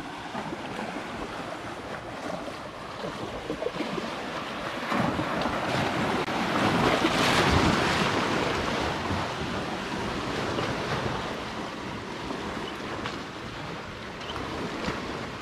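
Wake waves from a passing boat washing and splashing against the hull of a small fishing boat, building to the loudest point about halfway through and then easing off.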